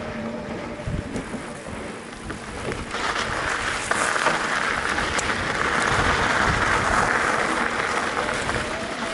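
Mountain bike rolling along a dirt trail: tyres crunching and rattling over the ground, picking up in volume about three seconds in.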